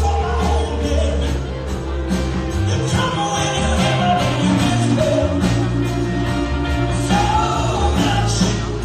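Rock band playing live in a stripped-down acoustic set: acoustic guitar, electric guitar, bass guitar and drum kit keeping a steady beat, with singing over them.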